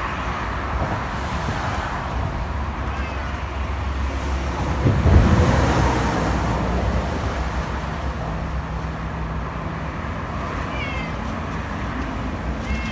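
Steady rumble of wind and road traffic, swelling about five seconds in, with a few short rising-and-falling animal cries near the end.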